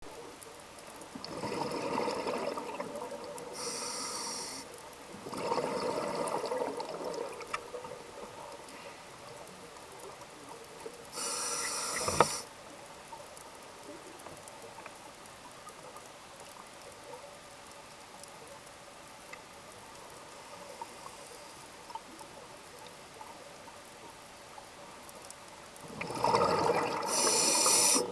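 Scuba diver breathing through a regulator underwater: bursts of bubbling exhalation, each followed by a shorter hiss of inhaling. There are about three breaths, with a long quiet stretch between about 12 and 26 seconds in.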